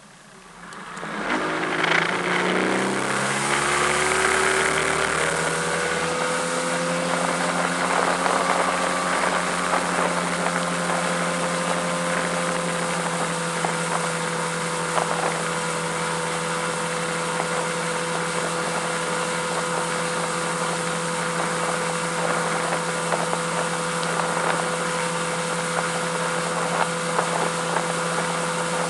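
Mercury 200 outboard motor opening up hard from idle, its pitch climbing over the first few seconds, then running steadily at speed under load while towing a barefoot water skier, with a rush of water and wind over it.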